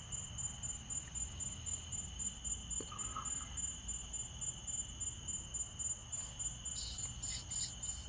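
Crickets chirping steadily in a high, evenly pulsed trill, over a low steady rumble.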